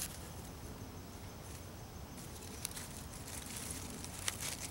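Faint rustling and small crackles of dry birch bark and bird's-nest tinder being pulled apart by hand, the crackles growing more frequent near the end, over a steady background hiss.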